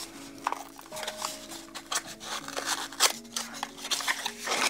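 Small kraft cardboard box being opened by hand: its flaps and sides scrape and click in quick, irregular handling noises. Soft background music with held notes runs underneath.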